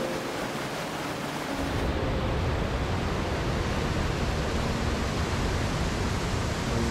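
Whitewater of a waterfall pouring over rock ledges, a steady rush of water; about two seconds in it becomes deeper and a little louder.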